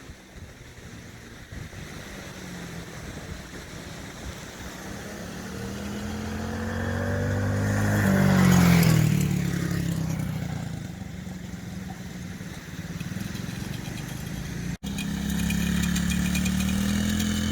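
Small 110 cc four-stroke mini ATV engine running under throttle. It grows louder as it comes closer, passes close by about halfway through, then fades. Near the end it is heard again at close range after a brief cut.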